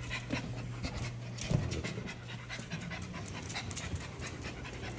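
Bully-breed dog panting in quick short breaths, over a steady low hum.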